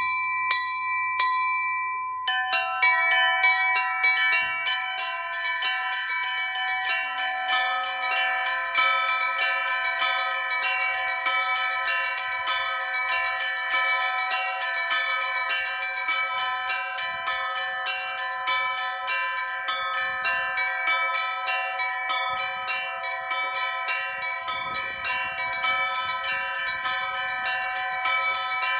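Russian Orthodox church bells ringing a festive peal. A single stroke and a few light strikes open it, then about two seconds in many bells join in a fast, dense ringing. A deeper bell joins about seven seconds in.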